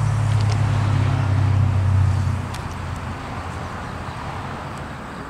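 A motor vehicle's engine running close by, a steady low hum that is loud for the first two and a half seconds and then fades away.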